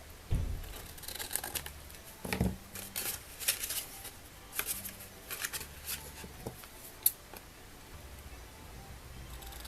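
Scissors snipping through card stock in a run of short cuts, trimming off an overhanging edge, with a couple of dull thumps as the card is handled.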